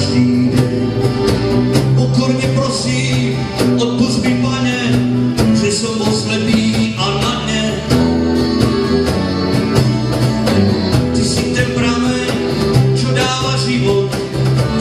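Live band playing an instrumental passage on strummed acoustic guitars, with a steady strumming rhythm.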